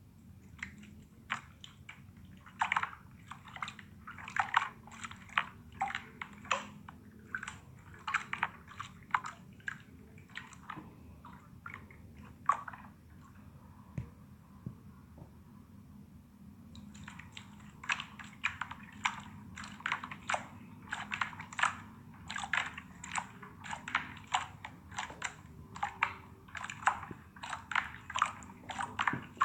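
A large jiggly slime being squeezed and poked by hand, giving quick sticky clicks and pops several times a second. The pops stop for about four seconds in the middle, then start again.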